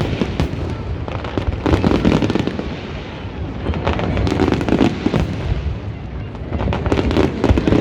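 Fireworks display: a dense, continuous crackle of sharp bangs over a low rumble of booming shells, swelling in louder clusters several times.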